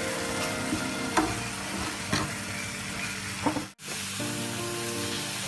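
Thick raw mango chutney sizzling in a steel pan on low heat as a wooden spoon stirs it, with a few soft knocks of the spoon. The sound cuts out for a moment a little before four seconds in.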